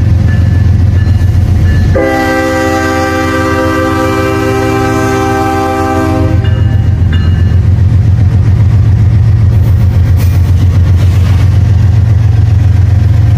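Norfolk Southern freight train's diesel locomotives sounding the horn in one long chord blast of about four seconds, starting about two seconds in. Under it the locomotives' diesel engines run loudly as the train passes close by.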